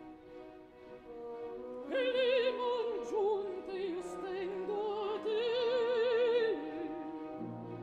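Operatic soprano singing a slow, pleading phrase with wide vibrato over an orchestra. The accompaniment is soft at first, the voice comes in strongly about two seconds in, and it drops back near the end, leaving low orchestral notes.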